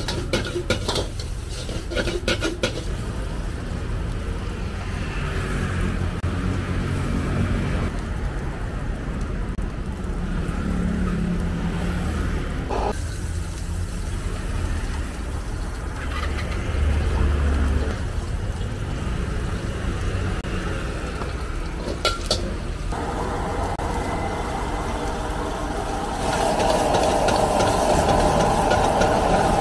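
Gas wok burner running with a steady low rumble. A metal ladle scrapes and clatters against the wok in the first few seconds and knocks once about two-thirds through. Near the end it grows louder as cabbage hits the hot oil and sizzles over the flaring flame.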